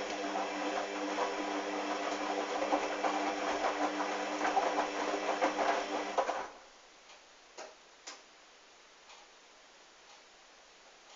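Hoover washing machine's motor turning the drum during a wash of wet towels: a steady hum with a clatter of small clicks, which stops abruptly about six and a half seconds in. A few faint clicks follow as the drum comes to rest.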